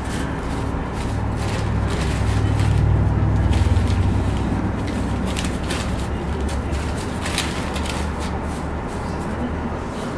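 Dry tobacco wrapper leaves and a clear plastic bag crinkling and rustling as the leaves are pulled out and spread flat by hand. Under it runs a low rumble that swells a couple of seconds in and eases off after the middle.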